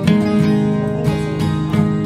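Background music led by a strummed acoustic guitar, with a steady, regular strum.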